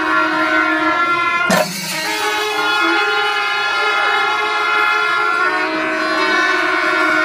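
A group of kombu, the curved brass horns of Kerala temple music, blowing long, steady, overlapping blasts. There is one sharp crack about a second and a half in.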